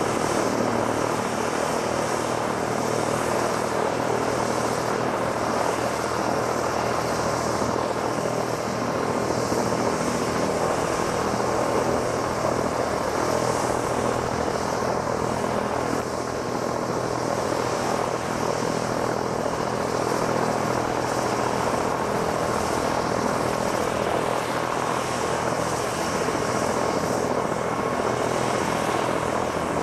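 MBB/Kawasaki BK 117 twin-turboshaft helicopter running on the ground with its main rotor turning: a steady, even turbine whine over the rotor and engine noise.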